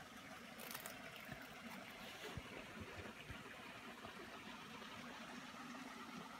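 Faint, steady rush of a stream, with a few soft thumps and clicks scattered through it.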